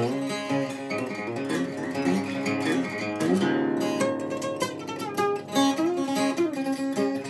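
Fretless acoustic guitar played in a slow improvisation: plucked notes ring over a held low drone note, and the melody slides up and down in pitch a few times, about three seconds in and again near the end.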